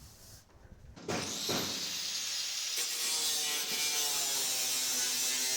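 Sheet metal scraping and grinding against metal as a new steel floor pan assembly is forced into a truck cab: a loud, steady scraping hiss that starts abruptly about a second in, with ringing squeal tones that slowly drop in pitch from about halfway on.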